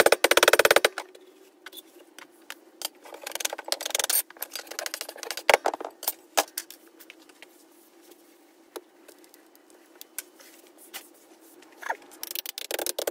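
Rapid pounding as Petrobond sand is rammed into a steel moulding flask, stopping about a second in. It is followed by scattered scrapes, taps and clicks as the sand is worked and the flask is handled on a metal workbench, with a cluster of rattling near the end.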